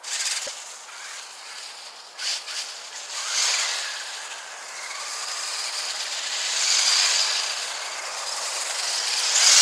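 Remote-control car driving through slush and water: a hissing spray of tyres on wet ground that swells and fades several times and is loudest near the end.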